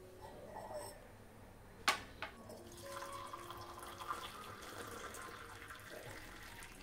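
Hot milky chai poured from a steel saucepan into ceramic cups: a steady trickling, splashing stream of liquid. It is preceded, about two seconds in, by a couple of sharp knocks, as of a cup being set down on a plastic tray.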